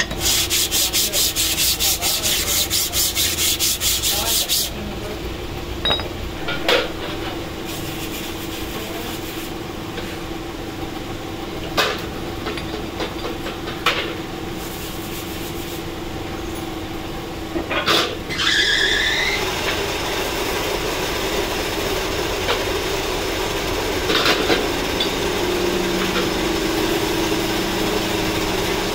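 Fast back-and-forth scraping of a cast pump plate rubbed on a flat steel plate, stopping after about four seconds. Then scattered metal knocks and the softer rubbing of a rag scrubbing pump parts in a bowl of washing liquid, with a short squeal just after halfway and a steady machine hum underneath.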